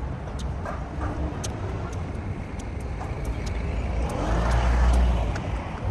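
City street ambience with a steady low rumble; a vehicle passes, swelling loudest about four to five seconds in.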